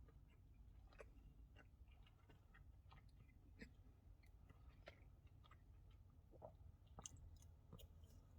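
Faint chewing of a breadcrumb-coated Cumberland sausage snack egg: irregular small mouth clicks over a low background hum.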